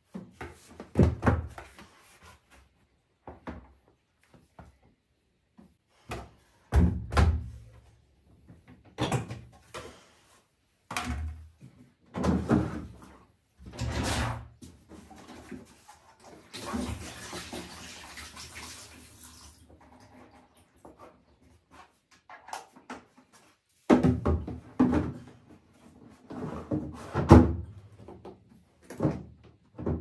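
Irregular plastic knocks and thuds, in clusters, from a tumble dryer being emptied and opened up for cleaning: the drum emptied, its lower cover panel taken off and the compartment beneath opened. There are a few seconds of rustling about halfway through.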